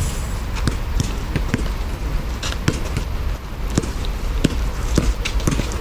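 A basketball bouncing on an asphalt court, mixed with players' footsteps: a scatter of irregular sharp thuds, over a steady low rumble.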